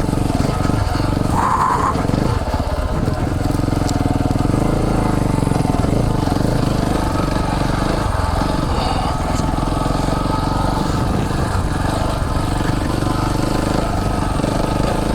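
Single-cylinder dual-sport motorcycle engine running steadily while riding along a trail.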